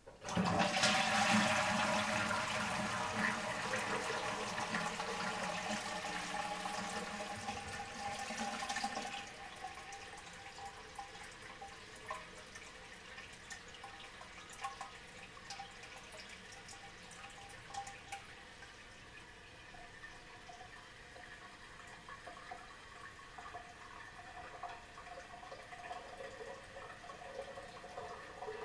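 Toilet flushing: a loud rush of water starts suddenly and cuts off about nine seconds in. It is followed by a quieter trickle with small drips as the tank refills.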